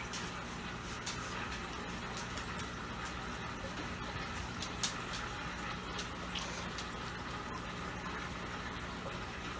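Aquarium filter water running and splashing steadily into a tank whose water level is lowered for a water change, over a low steady pump hum. A few small handling clicks, the sharpest about five seconds in.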